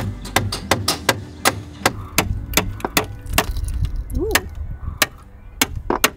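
Hammer tapping a blade wedged under a fibreglass deck step, repeated sharp metallic taps about two to three a second with a short pause partway through, to cut through the caulk bedding and free the step.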